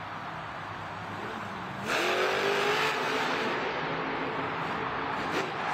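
Monster truck's supercharged V8 running, then revving up sharply about two seconds in and holding high revs as the truck pivots up on its sidewall.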